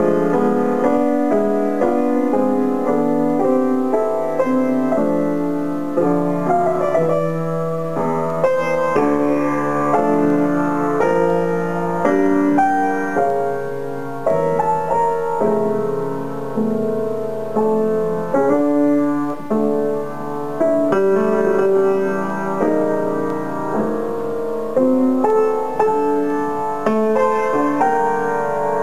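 Grand piano played solo: chords and melody notes sound without a break, swelling and easing in loudness with the phrasing.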